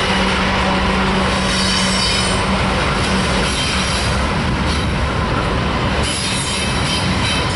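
Freight train passing close by: double-stack container cars rolling past with a loud, steady rumble of wheels on rail, behind a Norfolk Southern GE AC44C6M diesel locomotive pulling away. A faint high wheel squeal comes in about two seconds in.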